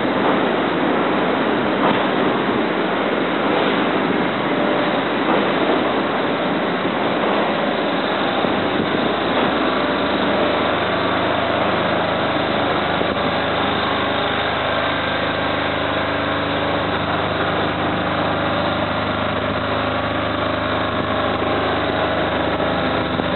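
Wind rushing on the microphone, with a steady low machine hum of the Tees Transporter Bridge's gondola and its drive coming in about halfway through as the gondola draws in to the landing.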